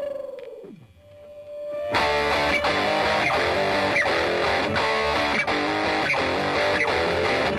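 Background rock music led by electric guitar. A guitar note falls in pitch and fades, a held note swells, and the full band comes in about two seconds in.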